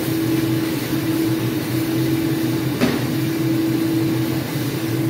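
Steady droning hum of a kitchen range-hood fan, with a wooden spatula stirring scrambled eggs in a stainless steel wok and one light knock a little before three seconds in.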